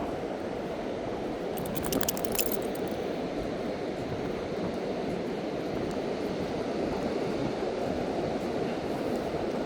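Steady rush of surf and wind on a beach, with a brief cluster of light clicks about two seconds in.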